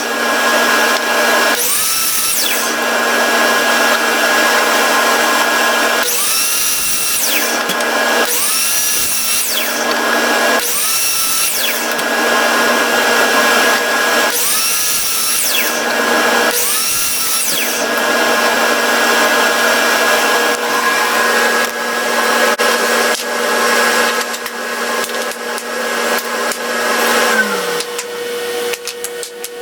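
Electric drill running steady, its motor dipping in pitch several times about every two seconds as the bit is fed into the wood, then running on and winding down to a stop near the end.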